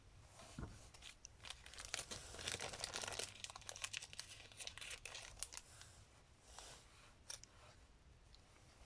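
Faint rustling and crinkling with scattered light clicks, as small parts from a carburetor rebuild kit are handled.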